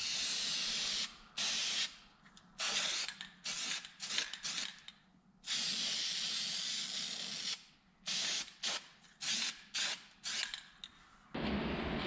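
Aerosol can of black spray paint hissing in bursts: a few long sprays of one to two seconds between many short puffs. Near the end the spraying stops.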